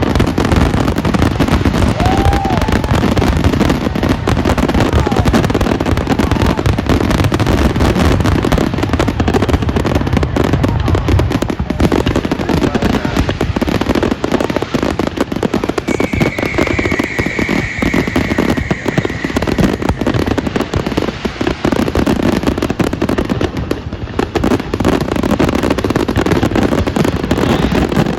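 Fireworks going off in quick, unbroken succession: dense crackling and banging. Around the middle, a high steady whistle runs for a few seconds.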